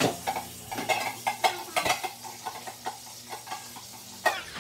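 Metal utensil stirring in a small pot, clinking and scraping against its sides in quick, irregular taps.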